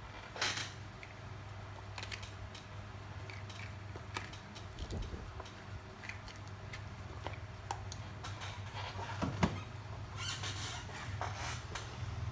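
Small clicks and short scraping squeaks of hand tools at a repair bench, over a steady low hum.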